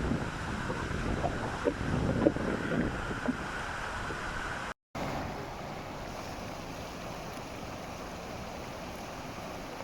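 Rainstorm: wind buffeting the microphone in gusts over a steady rush of water, cutting sharply about halfway through to a quieter, even rush.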